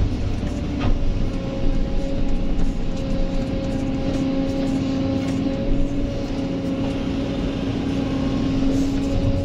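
Kobelco SK excavator's diesel engine and hydraulics working under load, heard from inside the cab: a steady drone with a constant whine and a few short knocks as the bucket digs into rocky soil and lifts its load.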